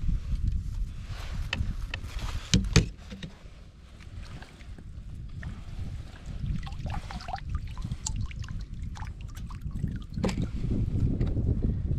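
Sounds of a fishing kayak on the water: a steady low rumble with scattered knocks and clicks, the loudest a sharp thump about two and a half seconds in.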